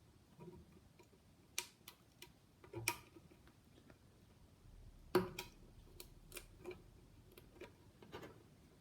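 Scattered small clicks and taps at irregular intervals, the sharpest about five seconds in: HM50256P-15 memory chips being handled and pushed into their IC sockets on the circuit board.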